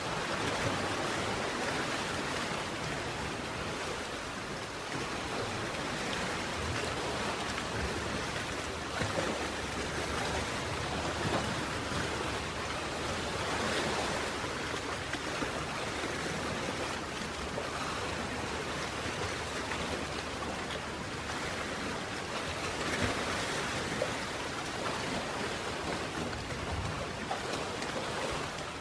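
Sea surf: a steady rush of breaking and washing waves, swelling slightly now and then.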